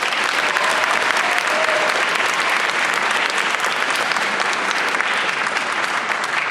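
Audience applause from a large crowd in a hall, dense clapping with some cheering, building in just before and easing off near the end.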